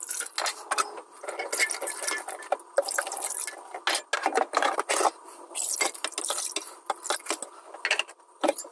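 Water poured from a plastic jug into a saucepan in a stainless steel sink, splashing and trickling as the pan is rinsed, with scattered clinks and knocks of the pan against the sink.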